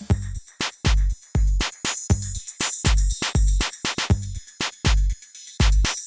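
Electronic background music with a steady drum-machine beat of deep kicks about twice a second and sharp hi-hat clicks, with a short break in the beat about five seconds in.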